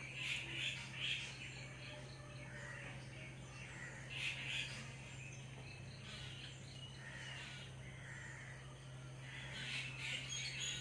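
Crows cawing in short bouts: a quick run of calls at the start, more about four seconds in, and again near the end.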